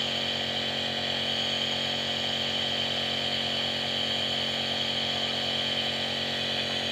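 Compressor nebulizer running steadily: an even motor hum with a constant high hiss of air.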